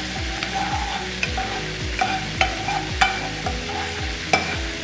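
A cooking spoon stirring cumin seeds in oil in a nonstick saucepan, with a few sharp taps of the spoon against the pan. The oil is warming up and the seeds are just beginning to fry, with a light sizzle. A regular low beat runs underneath.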